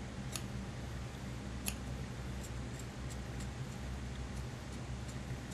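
Tailor's shears cutting through a single layer of thick suit fabric: a few short, sharp snips of the blades, two louder ones in the first two seconds and fainter ones after, over a steady low hum.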